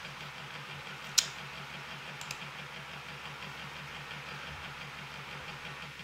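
Computer mouse clicking while navigating web pages: one sharp click about a second in, then a couple of fainter clicks a second later, over a steady low hum.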